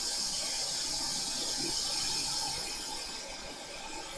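Hot air rework station blowing a steady hiss over a circuit board while the solder on a freshly seated connector is still molten; it eases off a little near the end.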